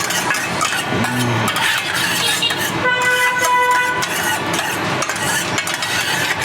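Metal spatulas scraping and clattering on a teppanyaki iron griddle as fried rice is stir-fried. About three seconds in, a vehicle horn sounds one steady note for about a second.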